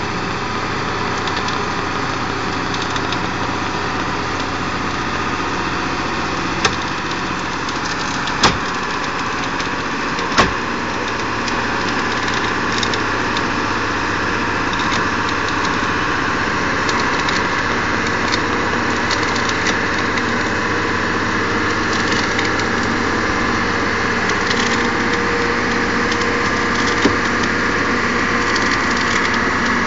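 A jeepney's engine running steadily as it climbs a rough road, with rattling. Three sharp knocks come between about 7 and 10 seconds in, and the engine grows a little louder after that.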